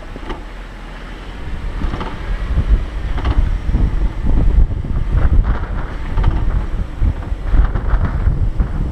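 Wind buffeting the microphone of a hood-mounted camera over the low rumble of an off-road vehicle driving slowly along a rutted dirt trail, with irregular knocks and rattles as it rides over the bumps. It grows louder about two seconds in.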